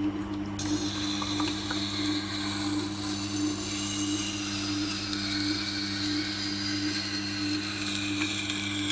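Tormek T8 wet grinder's motor humming steadily while the steel blade of a Victorinox chef knife is drawn across its turning SG250 stone, a grinding hiss that starts about half a second in.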